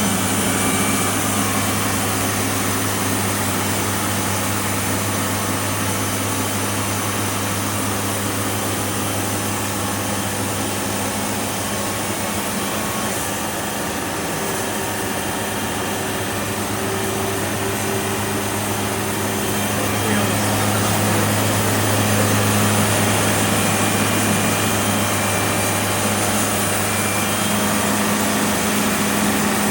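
Sawmill machinery running: a steady engine-driven hum over a dense mechanical noise, easing slightly around the middle and growing louder again about twenty seconds in.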